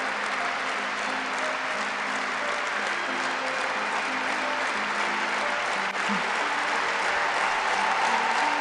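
Large audience applauding steadily, with instrumental music of held notes playing underneath.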